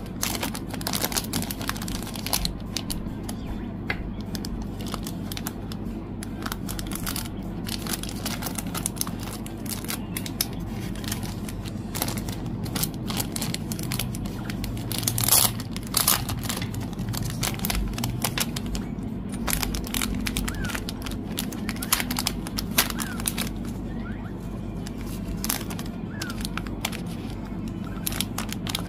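Fan-kit packaging being handled: irregular crinkling and rustling of plastic and paper, with scattered small clicks and taps. One louder rustle comes about fifteen seconds in.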